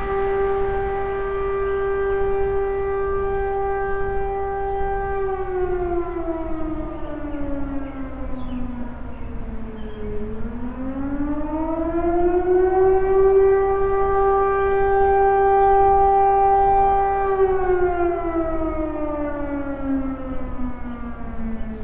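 Fire siren sounding a long steady wail. About five seconds in it winds down in pitch, climbs back up about ten seconds in and holds steady again, then falls away near the end.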